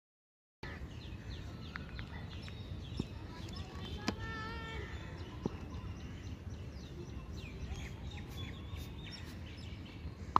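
Outdoor ambience of a steady low rumble with many birds chirping. About four seconds in comes a sharp click and then a short pitched call. The sound cuts in after a moment of silence at the start.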